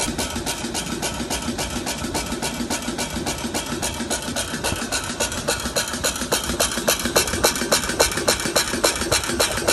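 Cold-extrusion jerky treat machine running, with a rapid, even clacking of about five or six strokes a second over a steady mechanical hum as it forms and drops heart-shaped treat pieces onto its conveyor belt. The clacking grows a little louder and sharper about two-thirds of the way through.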